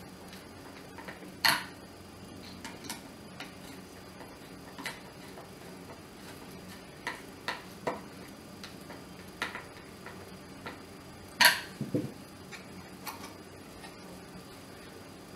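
Screwdriver turning screws into the plastic housing of a dry iron: irregular light clicks and ticks of metal on plastic, with a louder click about a second and a half in and a sharp knock near the end followed by a low thump, over a faint steady hum.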